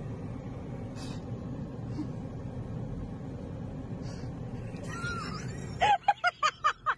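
Steady low rumble of road and engine noise heard inside a moving car's cabin. About six seconds in, it gives way suddenly to quick rhythmic laughter, about six short bursts a second.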